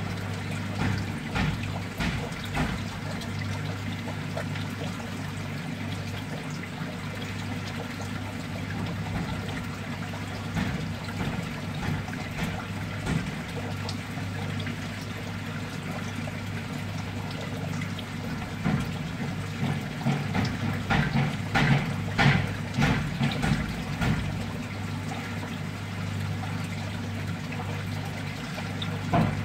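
Water trickling and pouring steadily through a mud crab fattening tank, over a constant low hum. A run of sharper splashes and clicks comes about two-thirds of the way through.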